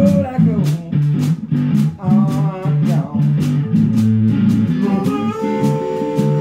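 Small blues band playing: drum kit, guitar and bass line, with a bending lead melody over them. About five seconds in, the lead settles into a long held chord.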